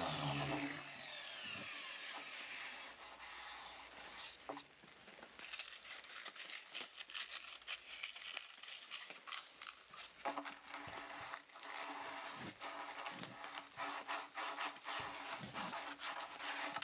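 Random orbital sander spinning down, a falling whine over the first second or two, then faint, irregular scratching of sandpaper rubbed by hand over the fibreglass deck.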